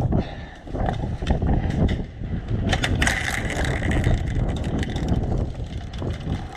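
Airsoft gunfire: scattered sharp clicks and snaps of shots and BBs hitting cover, over rustling handling noise, with a short mechanical whine about three seconds in.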